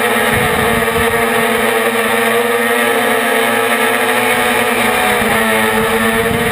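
Brushless motors and propellers of a 450-size quadcopter, heard from its onboard camera, with a steady whine that dips slightly in pitch and rises again near the end as the throttle changes. Low wind buffeting on the microphone underneath.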